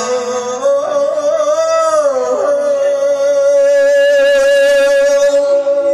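Male voice singing a Thai Isan verse sermon (thet klon) in long drawn-out notes with vibrato. About two seconds in, a note slides down and settles into one long held tone.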